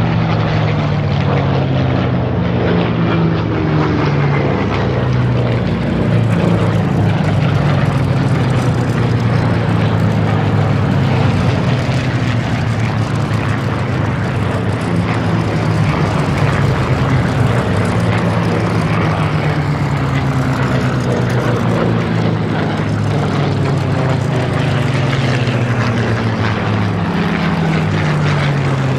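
Several Supermarine Spitfires flying past in a tail chase, their V12 piston engines running loud and steady, with the engine note dropping in pitch each time one passes.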